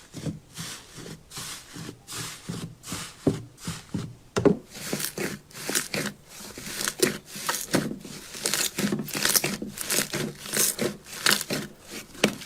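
Slime being squeezed and pressed by hand: a quick run of crinkly, crackling squishes, about two a second, growing louder and busier about four seconds in.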